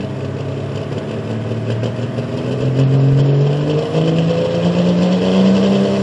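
Diesel pickup engine under full load pulling the sled, revving up with its pitch climbing steadily and stepping up about four seconds in.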